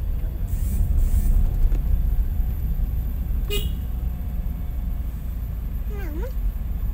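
Steady low rumble of a car driving, heard inside the cabin, with a short toot of the car horn about halfway through.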